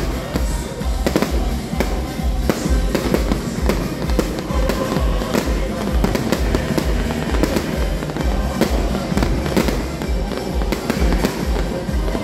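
Fireworks going off in rapid, overlapping bangs and crackles over loud music with a steady pulsing bass beat.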